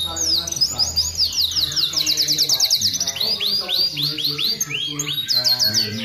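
Domestic canary singing continuously: runs of quick repeated chirps and trills, each run on a different note, changing every second or so.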